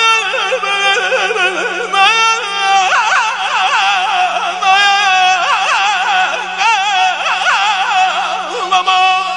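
Azerbaijani mugham music: one melodic line, heavily ornamented with fast trills and wavering pitch, over a steady low drone.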